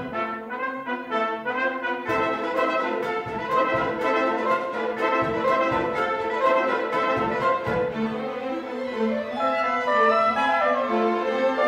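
Orchestra of strings and woodwinds playing, with a soprano saxophone soloist in front.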